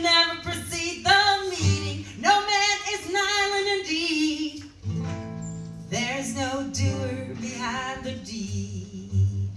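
A woman singing a melody, accompanied by a strummed acoustic guitar. Near the end the voice thins out and the guitar carries on.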